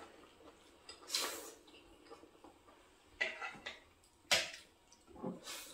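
Cutlery clinking and scraping against plates during a meal: a handful of short, quiet clicks and scrapes a second or so apart.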